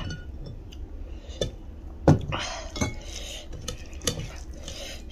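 A hand mixing rice and curry on a stainless steel plate: soft squishing and scraping with a few sharp clinks against the metal, the loudest about two seconds in.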